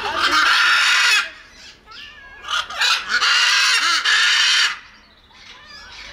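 Macaw calling: two loud, harsh squawks, the first about a second long and the second nearly two seconds, with softer short calls between them and after.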